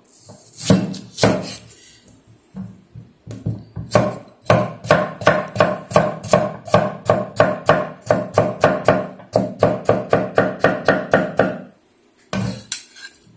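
Chinese cleaver chopping a peeled celtuce stem into slices on a wooden chopping board: a few separate cuts, then a steady run of knocks at about four a second, then a few more cuts near the end.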